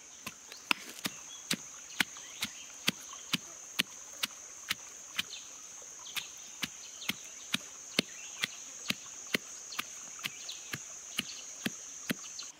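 Pestle pounding red chillies, garlic and peppercorns in a stone mortar for a hot pepper sauce. Sharp knocks come in a steady rhythm of about two a second, over a steady high-pitched drone.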